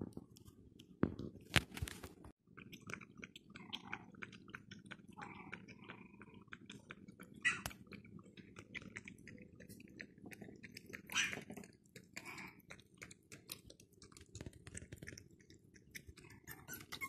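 Maltese puppy chewing and gnawing close to the microphone: a string of small clicks and crunches from its teeth.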